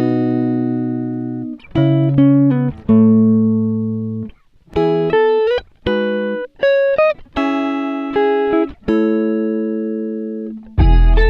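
Clean plucked guitar music playing through a Sony centre and surround speaker set, with chords that ring and fade between short gaps. A deep bass note comes in near the end.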